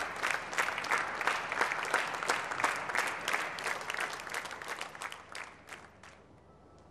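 Studio audience applauding, thinning out and dying away about six seconds in.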